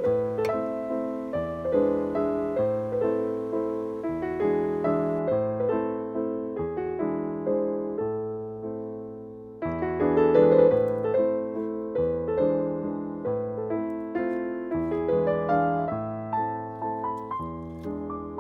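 Background piano music: a gentle melody over changing chords, the notes struck and left to fade, with a new phrase starting about halfway through.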